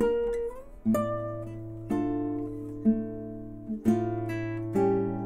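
Classical guitar played slowly, with a plucked note or chord about once a second over held bass notes. Shortly after the start, a note slides upward in pitch.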